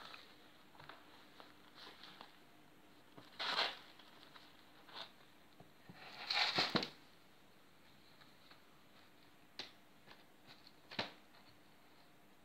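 Maine Coon kittens scuffling at play: scattered soft rustles, pattering and taps, with two louder rustling bursts about three and a half and six and a half seconds in, and a couple of sharp taps near the end.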